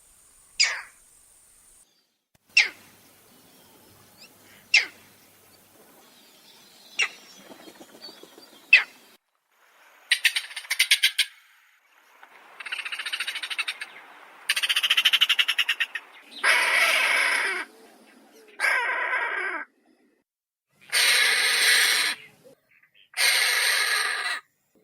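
Heron calls: five short, sharp notes, each falling steeply in pitch, about two seconds apart, then a rapid ticking rattle and a run of long, harsh, rasping squawks.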